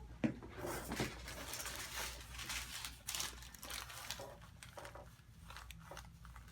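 Soft, irregular rustling and crinkling of hands shifting their grip on a patient's neck and head on the adjusting table, with a couple of faint taps in the first second.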